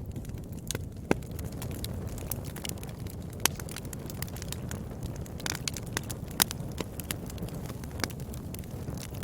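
Wood fire burning: a steady low rush of flame with irregular sharp crackles and pops, a few louder snaps standing out among them.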